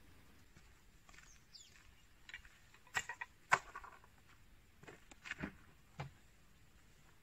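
Footsteps crunching on dry dirt ground strewn with pine needles: a run of uneven steps, the two loudest near the middle.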